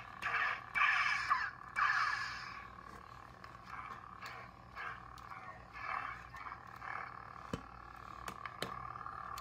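Lightsaber soundboard (Nano Biscotte v3) playing an Obi-Wan sound font through a small 20 mm speaker turned down low. A steady hum with several loud swing whooshes in the first two seconds or so, then quieter hum with smaller swells and a couple of sharp clicks near the end.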